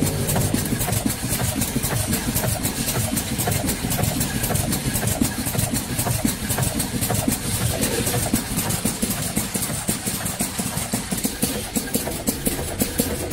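Sachet packing machine running at about 106 bags a minute: a steady mechanical hum with a fast, even ticking from its moving parts.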